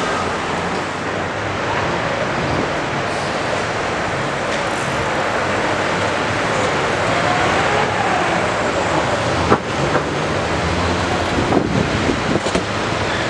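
City street traffic noise: a steady hum of passing vehicles, with two brief sharp knocks in the second half.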